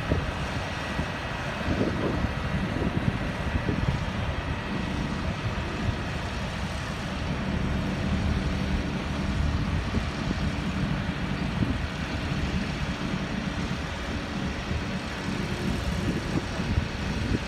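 Diesel engine of a 55-ton mobile crane running steadily while the crane holds a pipe section on its hook.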